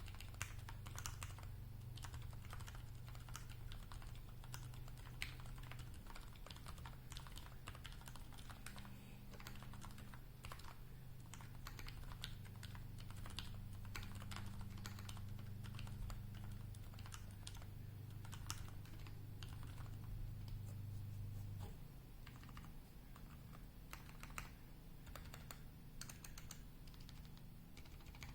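Continuous typing on a custom mechanical keyboard with an aluminium Singa V2 case, brass plate, lubed ZealPC Roselio 67 g silent linear switches and GMK keycaps: a steady stream of keystrokes. A low steady hum sits behind it and drops away about three-quarters of the way through.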